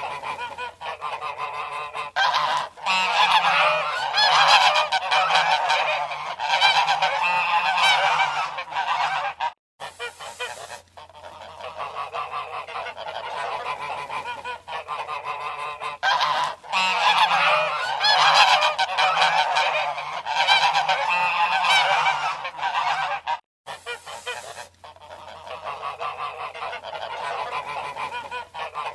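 Geese honking: many overlapping calls in loud bouts, with brief breaks twice.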